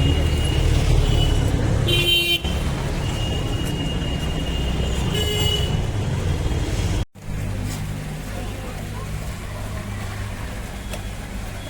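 A motor vehicle engine running steadily, with two short horn toots, about two seconds and five and a half seconds in. The sound drops out for a moment about seven seconds in, then the engine sound carries on.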